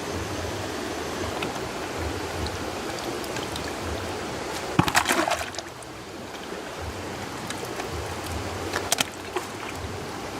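Water running and trickling, with a quick run of sharp clatters about five seconds in and a few more near the end.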